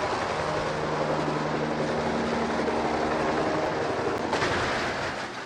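Small bubble-canopy helicopter's engine and rotor running steadily with a constant hum. About four seconds in, a harsher rushing noise takes over as the helicopter loses control and tips over, and the sound falls off near the end.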